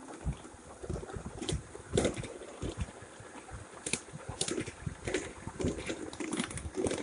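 Wheels of a ride-on 7.5-inch gauge miniature train clicking and clattering irregularly over rail joints and track work as it rolls along, over a low rumble.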